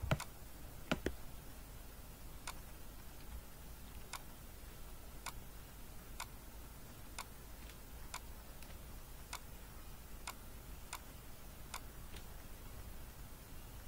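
Computer mouse clicking: faint single clicks at uneven intervals, roughly one a second, over a steady low hum.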